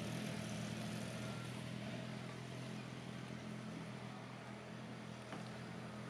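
A steady, low engine hum with an even hiss over it, easing off slightly toward the end.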